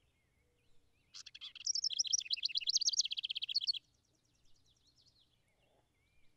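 House wren singing one song of about two and a half seconds, starting about a second in: a fast run of rapidly repeated trilled notes that stops abruptly.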